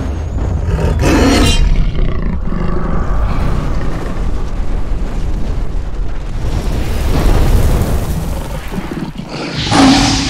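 Sound-designed animated outro: a big cat's roar about a second in and another near the end, over a deep, continuous rumble that swells in the middle like a fiery boom.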